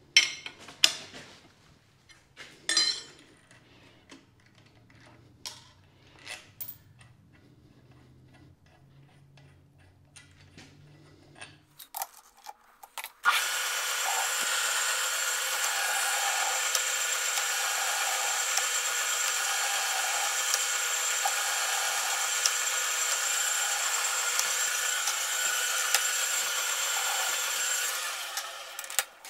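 A few light metal clinks and handling sounds, then a power tool running steadily for about fifteen seconds as a steel stud is cut down, stopping shortly before the end.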